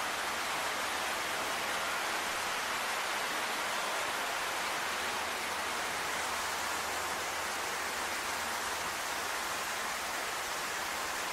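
A steady, even hiss that holds unchanged throughout, with a faint low hum underneath.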